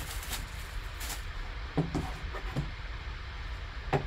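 Plastic shrink wrap crinkling as it is torn off a cardboard trading-card box, followed by a few light knocks of the box being handled on the table about two seconds in and again near the end.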